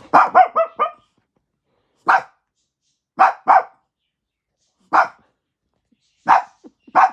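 Dog barking: a quick run of about four barks at the start, then single and paired barks every second or so.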